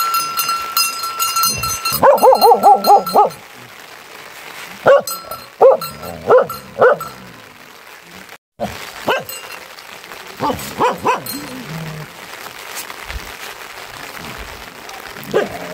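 A dog barking and yelping. A quick quavering run of yelps comes about two seconds in, then short single barks in groups of three or four.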